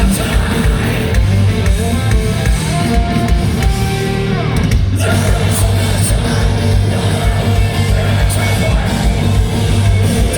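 A heavy rock band playing live, loud amplified distorted guitars over bass and fast kick drum, with vocals, heard through a large hall's PA.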